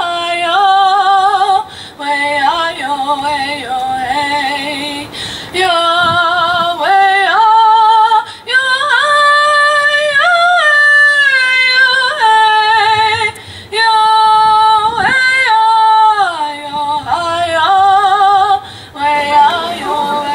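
A young woman singing solo and unaccompanied, long held notes with a wide vibrato, in phrases separated by short pauses for breath.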